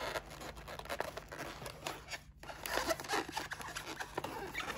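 Stiff glossy photo paper of a hand-made chip bag being folded and pressed by hand, crinkling and rustling in short irregular bursts, with a brief pause a little after two seconds.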